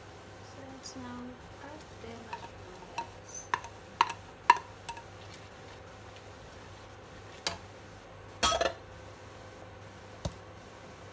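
A plastic spatula knocking and scraping against a bowl and a nonstick frying pan as sliced mushrooms are tipped into cream sauce and stirred in: a run of sharp taps, loudest about four seconds in, then a longer clattering scrape near the eight-second mark.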